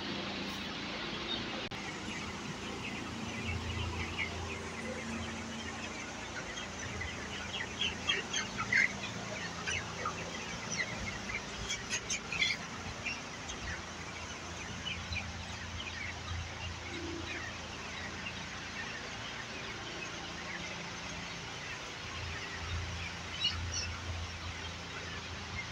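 A large flock of chickens in a poultry house calling over a steady din of many birds. Louder individual calls stand out about eight to thirteen seconds in and again near the end.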